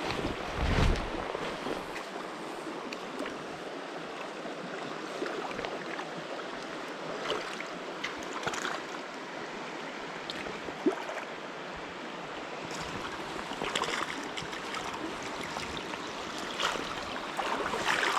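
Steady rush of a flowing mountain trout stream, with a few brief sharper knocks or splashes over it.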